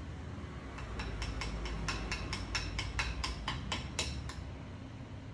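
Metal spoon clinking against a metal bowl about four to five times a second as salt is stirred into idli batter, in a run of ringing clinks that starts about a second in and stops after about four seconds.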